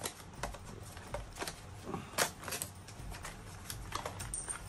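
Small boxed collectible figure's cardboard and plastic packaging being handled and opened: irregular light clicks and crinkles, with one sharper click a little past two seconds in.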